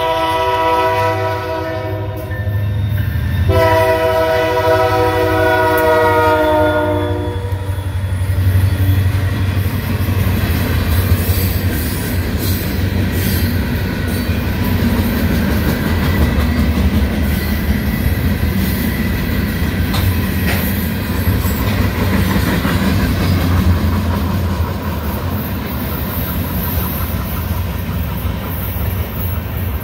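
Locomotive air horn sounding: a blast ending about 2 s in, then a second long blast from about 3.5 s to 7 s, as a freight train approaches. The train then passes with a steady low rumble of engine and wheels, with scattered clicks of wheels over rail joints.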